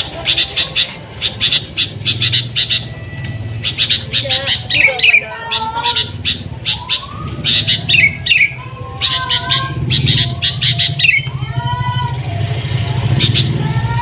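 Sooty-headed bulbul (kutilang) singing: bursts of rapid sharp chirps mixed with short whistled notes that slide up and down, over a steady low hum.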